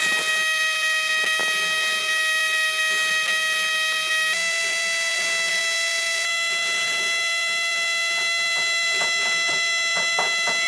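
Small electric motor running with a steady high whine, its pitch stepping up slightly about four seconds in, with a few light clicks near the end.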